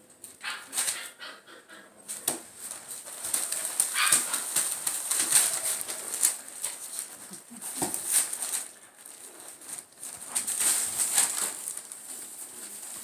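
Newspaper crinkling and rustling under a red puppy as it scrabbles and rolls about while tugging at a plush toy. The sound is an irregular run of scratchy crackles.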